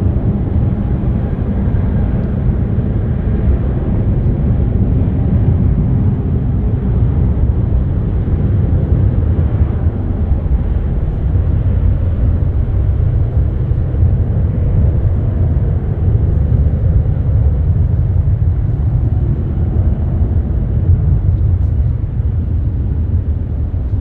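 Jet airliner engines rumbling steadily, a deep low sound, with a faint whine that fades out in the first few seconds.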